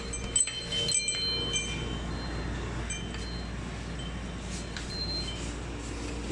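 Light metallic chime tones ringing and fading at several high pitches, like wind chimes stirring, over a steady low rumble.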